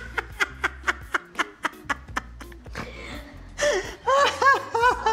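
Two women laughing hard: quick breathy pulses of laughter, then louder, high-pitched 'ha-ha' laughter from about three and a half seconds in.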